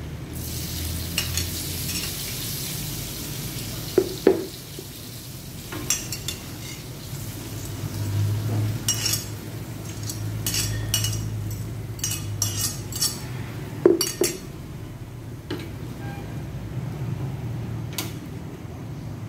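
Mushrooms and canned sweet corn going into a hot grill pan with salmon, sizzling, with a fork and metal tongs clinking and scraping against a glass bowl and the pan many times.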